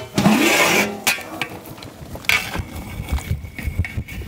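Large aluminium lid lifted off a big cooking pot with a sudden metallic scrape, followed by scattered soft pops and knocks from the thick fish-head curry simmering inside.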